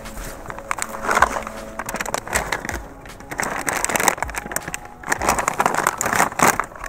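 Crinkling and rustling of plastic firework packaging being handled, in quick irregular bursts.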